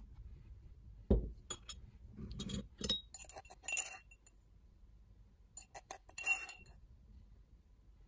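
A low thump about a second in, then a metal spoon clinking and scraping in two bursts against the engraved brass grounds cup of a Turkish coffee grinder and a porcelain cup as it scoops out freshly ground coffee.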